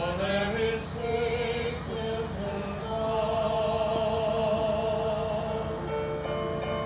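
A choir singing slow, held notes.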